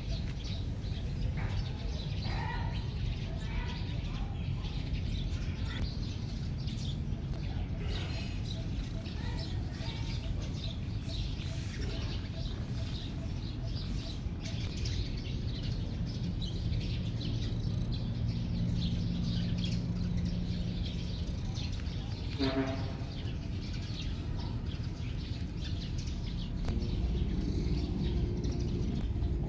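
Small birds chirping on and off over a steady low background hum, with one short pitched call standing out about two-thirds of the way through.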